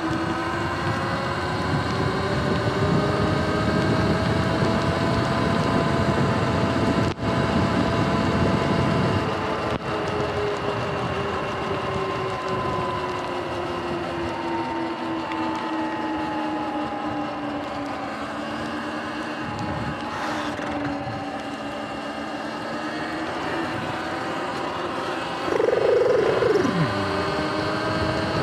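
Sur-Ron Light Bee electric dirt bike's motor and drive whining, its pitch slowly rising and falling with speed, over the hiss of tyres on wet pavement and wind. The whine briefly grows louder and swoops in pitch near the end.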